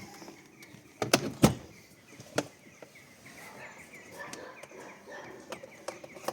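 Sharp knocks and clicks of the cabin-filter cover being refitted and snapped shut. The loudest pair comes about a second in, then a single knock, then smaller clicks.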